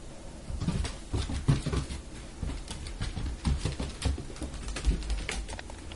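Irregular patter of clicks and soft thumps: a puppy's claws and paws scrambling on a bare hardwood floor.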